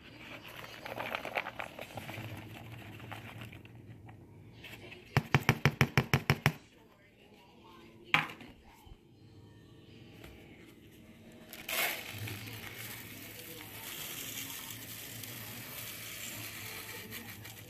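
Ingredients going into an Instant Pot's stainless-steel inner pot. First a rustling scrape as chopped vegetables slide off a paper plate. A few seconds later comes a quick run of about ten sharp taps, then a single knock. From about twelve seconds in, dry rice pours into the pot with a steady hiss.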